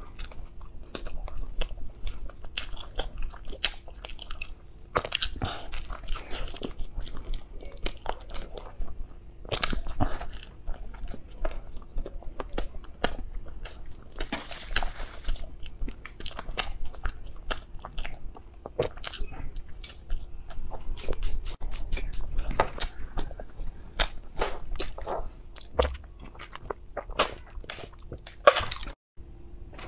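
Close-miked chewing and biting of soft cream-filled bread, with many short wet mouth clicks and smacks; near the end, gulps of a drink from a plastic bottle.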